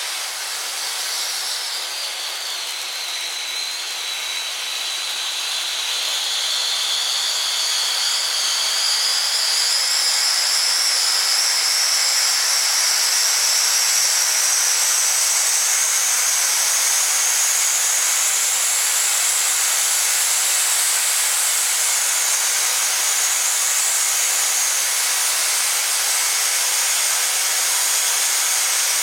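Blackboxx Super-Vulkan firework fountain burning with a steady hiss as it throws up its column of sparks. The hiss swells over roughly the first ten seconds and then holds. A faint high tone within it dips early on and then slowly rises in pitch.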